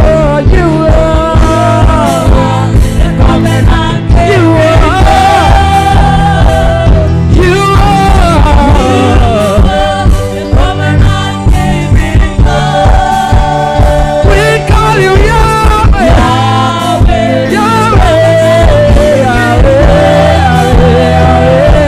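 Live gospel music: a man sings lead into a microphone over a band with drum kit and keyboard, with backing singers.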